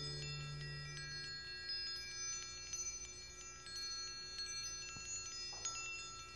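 A faint shimmer of chimes under the closing title: many high bell-like tones ringing in one after another at scattered moments. A low tone fades out during the first second and a half.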